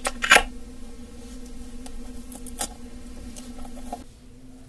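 Hands squeezing and handling a squishy mesh stress ball: scattered soft squishing and rubbing crackles, the loudest about a third of a second in and another a little after two and a half seconds. A faint steady hum runs underneath and stops near the end.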